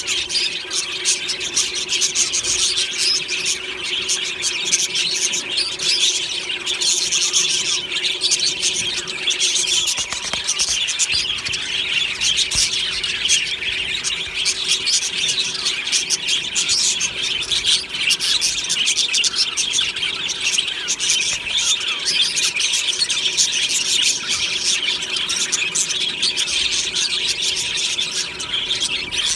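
A flock of budgerigars chirping and chattering together, a dense continuous wash of high, rapid chirps and warbles.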